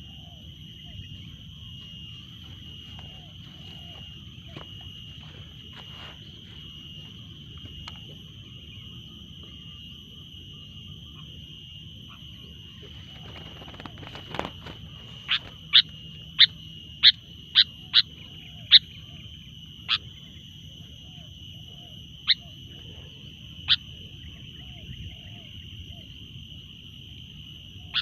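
Outdoor ambience with a steady high-pitched drone. About halfway through comes a quick run of sharp, short chirps, the loudest sounds here, then a few more spaced several seconds apart.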